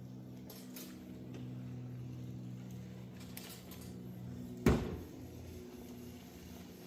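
Jetson Bolt Pro e-bike's electric motor running with a steady hum as it is tested on a freshly fitted replacement lithium battery pack. A single sharp knock comes about two-thirds of the way through.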